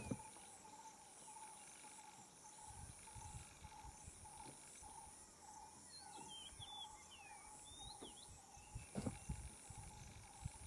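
Faint natural background: a steady high insect buzz and a lower, evenly pulsing call run throughout. A few short bird chirps come around six to eight seconds in, and there are some low bumps about nine seconds in.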